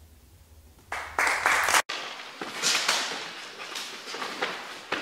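Audience applause and clapping breaking out about a second in, cut off abruptly by an edit; then a few short, sharp sounds from a pencak silat sparring pair at close quarters.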